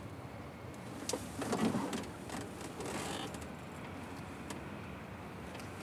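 Quiet hiss with a few faint clicks and knocks, and a soft muffled rustle about a second and a half in.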